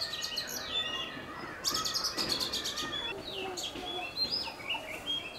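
Several songbirds chirping and singing at once, with quick rising and falling calls and rapid runs of high notes.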